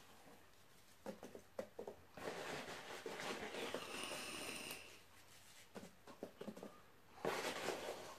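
Quiet handling of parcel packing by hand: soft rustling and a few small clicks, with a brief high squeak about four seconds in.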